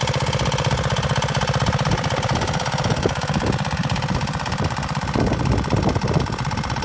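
Off-road go-kart's small engine running steadily with a rapid, even firing rhythm, with a few knocks in the second half.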